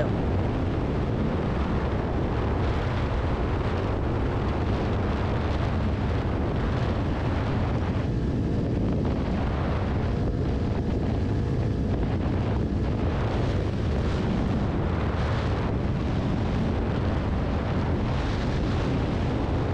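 Steady wind rush buffeting the helmet-mounted microphone at riding speed, with the running engine and Two Brothers exhaust of a Kawasaki Ninja 400 underneath, at an even level throughout.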